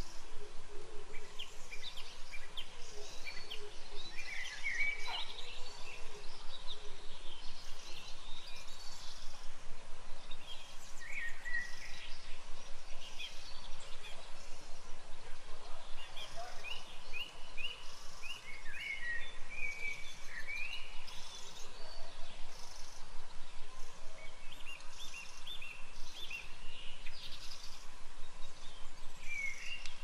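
Several birds singing and chirping in a wild chorus: short calls and quick runs of repeated notes, some rising, scattered throughout over a steady background hiss.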